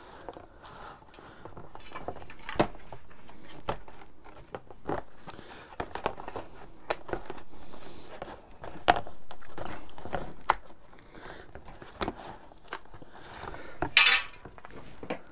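Cardboard rustling and scraping as a flattened box is pressed and shifted by hand against a motorcycle frame, with scattered light taps and clicks. About 14 seconds in there is a brief louder clatter as a hard plastic case is handled.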